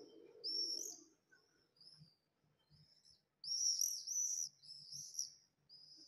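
Swifts flying overhead, giving short high-pitched screaming calls: one about half a second in, a few faint ones, then a loud run of several overlapping calls in the second half.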